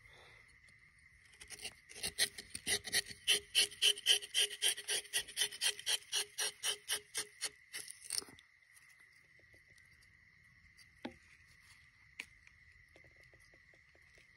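A rubber-tapping knife shaves a thin strip of bark along the sloping tapping cut of a rubber tree. It makes a quick run of rasping strokes, about five a second, for some six seconds, and stops at the lower end of the cut.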